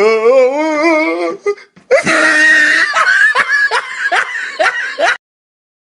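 Laughter: a voice laughing with a pitch that wobbles up and down for about a second and a half, then about three seconds of noisier, pulsing laughter that cuts off suddenly near the end.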